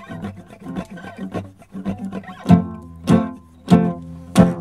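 Music on guitar: soft, scratchy picking, then four loud strummed chords a little over half a second apart in the second half.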